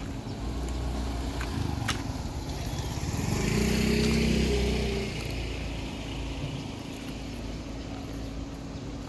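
A motorcycle passing on the street, its engine swelling to a peak about four seconds in and then fading, over a steady low hum of traffic.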